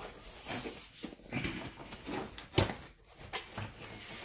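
Cardboard product box being handled and opened by hand: irregular scraping and rustling of the cardboard, with a sharp knock about two and a half seconds in.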